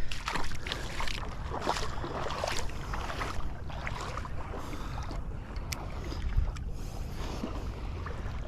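Wind buffeting the microphone over water sloshing at the shoreline, with scattered small clicks and rustles.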